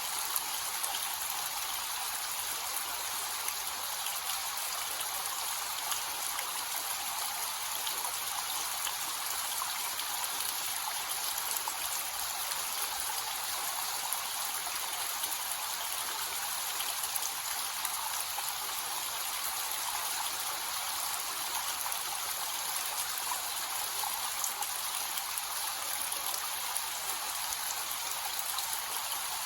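Small waterfall with a low flow of water splashing and trickling steadily, with light patters of drops.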